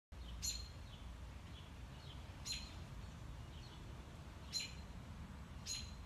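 American robin giving sharp, very short alarm calls, four loud ones spaced one to two seconds apart with fainter chirps in between. This is the sound of an agitated robin, which the listener takes to be upset at a grackle or starling.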